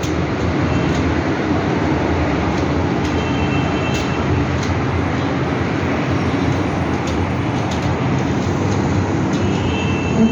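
Rubik's cube being turned rapidly by hand, a steady clatter of plastic layers with a few sharper clicks.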